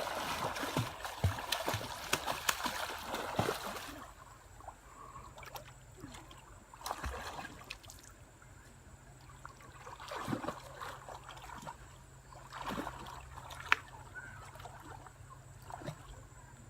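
Water splashing and sloshing in shallow water, busy for the first few seconds, then a few separate splashes with quieter stretches between, and a sharp click near the end.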